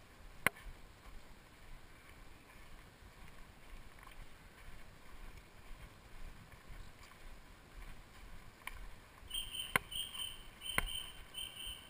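Footsteps and rustling of people walking along a woodland path carrying a long wooden frame, with a few sharp knocks. In the last couple of seconds a high-pitched chirp sounds four or five times.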